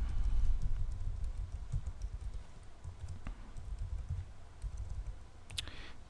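Typing on a computer keyboard: a quick, uneven run of key taps as an email address is entered.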